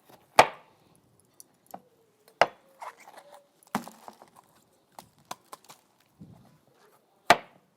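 Kitchen knife chopping vegetables on a cutting board: four loud, separate chops spaced irregularly, with lighter knocks and clicks between them.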